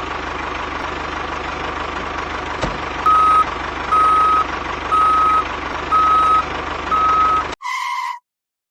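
Reversing-alarm beeps, five single-pitched beeps about once a second, over a steady mechanical hum. The sound cuts off abruptly near the end, leaving a brief two-note tone and then silence.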